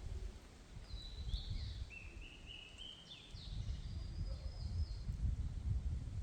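A songbird singing a series of short, high repeated notes for about four seconds, over gusty wind rumbling on the microphone.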